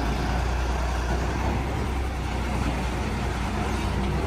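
Excavator's diesel engine running steadily, a constant deep hum under a wash of mechanical noise.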